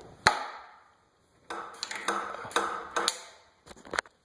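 Bridgeport milling machine's head controls being worked by hand to set reverse and low gear: a sharp metallic click with a short ring, then a run of clanks and clicks as the gear lever is forced over, which takes two hands. No motor is running.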